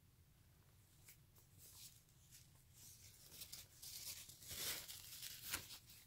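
Brown paper napkins rustling and crinkling as one is pulled from a stack and unfolded. Faint at first, louder in the second half, with a sharper crackle near the end.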